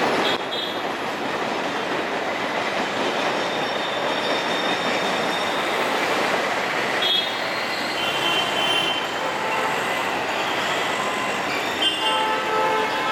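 Indian Railways express passenger coaches rolling past on the track: a steady rumble of wheels on rail, with brief high wheel squeals several times in the second half.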